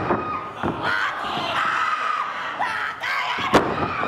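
High-pitched yelling and shouting in a pro wrestling ring, with sharp thuds on the ring: one at the start and a louder one about three and a half seconds in.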